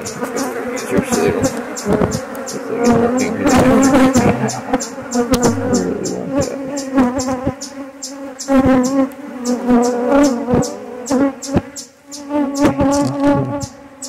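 Honeybees buzzing loudly close against the phone's microphone: defensive bees from the opened hive attacking the phone. The buzz wavers up and down in pitch, with frequent sharp ticks throughout.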